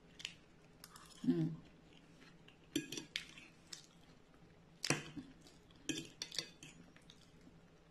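A metal fork clinking and scraping on a ceramic plate as food is picked up: a series of light clinks, the loudest about five seconds in.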